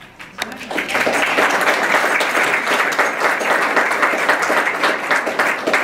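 Audience applauding: clapping starts a fraction of a second in, builds to full strength within the first second and then holds steady.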